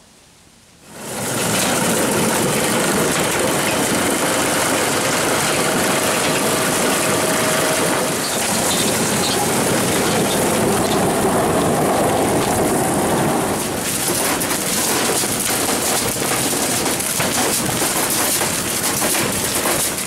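Chain-and-flight corn elevator running, carrying ear corn up into the crib: a loud, steady rattle of chain, flights and ears, with a motor running under it. It starts about a second in.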